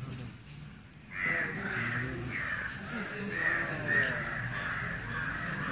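A baby crying, starting about a second in and carrying on without a break in a wavering wail.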